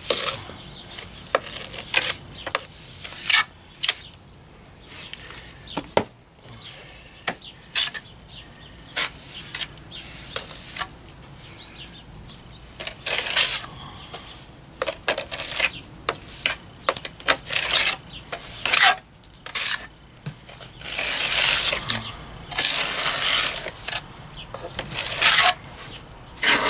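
A mason's trowel working stiff cement plaster onto an old block foundation: scattered sharp clinks and taps of the blade, with longer scrapes as plaster is spread across the wall, the longest near the end.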